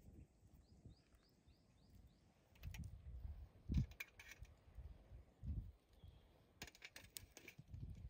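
Metal skewers loaded with whole tomatoes clicking and tapping as they are handled and laid on wood ash, with a soft thud a little before halfway and a cluster of clicks late on. A bird chirps a quick run of short notes about a second in.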